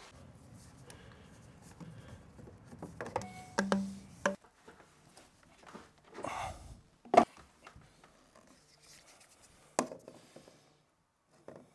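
White PVC drain pipe and fittings being handled and pushed together: scattered knocks and rubbing, with sharp clacks about seven and ten seconds in.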